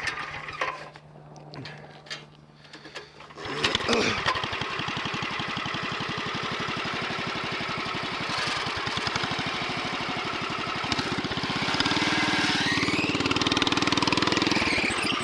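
Honda GX340 11 HP single-cylinder four-stroke engine starting about three and a half seconds in, then running steadily and getting louder in the last few seconds.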